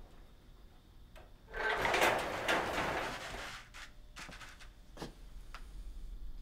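A door opening, heard as a noisy swell lasting about two seconds, followed by a few sharp light clicks.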